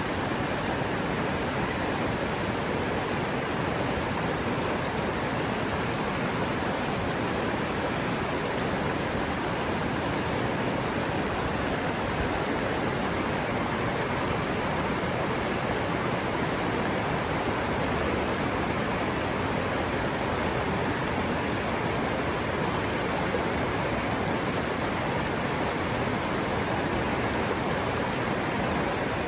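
River water running steadily, an even rushing sound that does not change.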